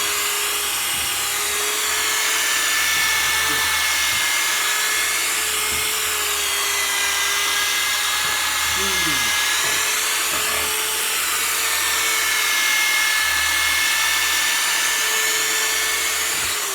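Handheld power tool spinning a sanding disc, running steadily as it wet-sands a plastic headlight lens. Its pitch holds steady while a hiss swells and fades every few seconds as the pad is swept across the lens.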